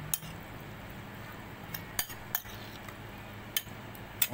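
A utensil clinking against a dish about six times: short, sharp, separate clicks with pauses between them.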